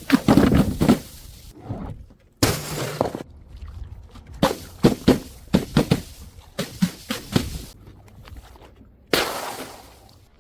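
Glass bottles smashing, one break after another: a burst of crashes at the start, a cluster of quick sharp cracks in the middle, and sudden loud crashes a couple of seconds in and near the end that trail off.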